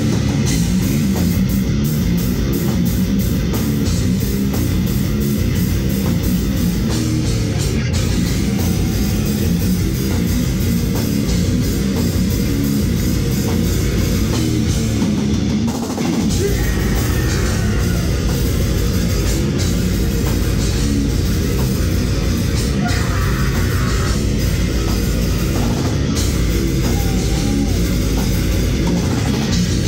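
Grindcore band playing live and loud: heavily distorted electric guitar over a pounding drum kit, with a momentary break about halfway through.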